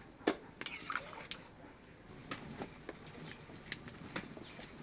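Scattered faint clicks and pops from a pot of potato curry boiling in a cast-iron kadai over a wood fire, the sharpest about a third of a second in.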